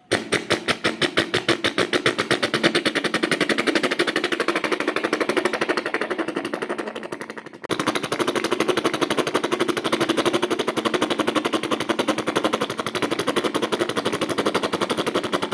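A man imitating a helicopter with his mouth: a rapid, steady rotor-like chopping that pauses for a moment a little past halfway, then resumes.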